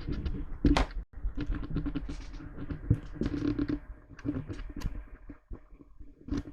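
Irregular run of clicks, taps and knocks over a low rumble, thinning out after about five seconds.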